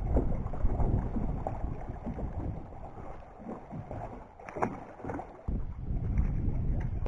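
Wind buffeting the microphone in gusts, a low rumble rising and falling, over water lapping around the dock. A brief sharp sound stands out about four and a half seconds in.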